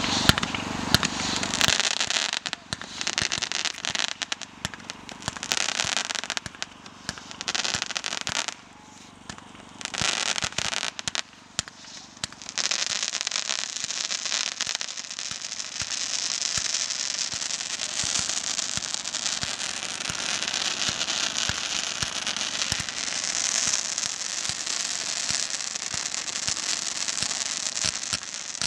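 Fireworks going off, spark-trailed shots rising and crackling, a dense stream of pops over a hiss. The firing eases in two short lulls around nine and eleven seconds, then runs on as steady dense crackling.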